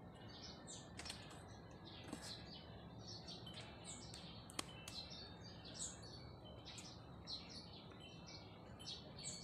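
Faint, scattered bird chirps over a low background hush, with a couple of light clicks.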